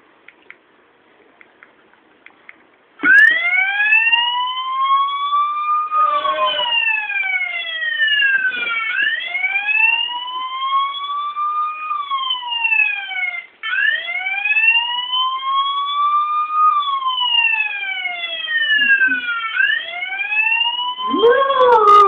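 Police siren wailing in slow rising and falling sweeps, starting suddenly about three seconds in, with a quicker run of short sweeps later on. Near the end a dog starts howling along with the siren.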